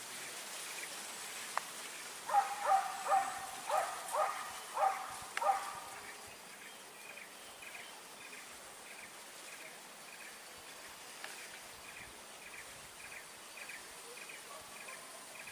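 Hunting dogs barking in the distance, about six barks in the first half. After that, a high chirping call repeats about twice a second.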